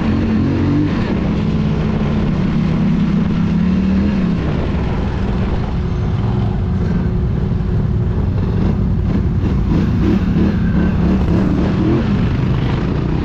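Polaris Scrambler 1000 XP quad's twin-cylinder engine running under way, its note rising and falling as the throttle changes, with other quads' engines running ahead.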